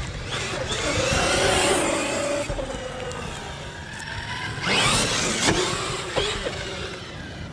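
Electric RC monster trucks driving fast on asphalt. The motors whine, rising and falling in pitch over tyre noise, in two louder passes: about a second in and near five seconds in.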